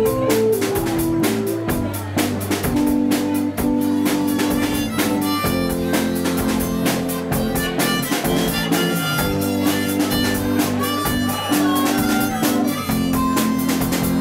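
Live indie rock band playing an instrumental passage with no singing: electric bass, a drum kit with cymbals, and held keyboard chords.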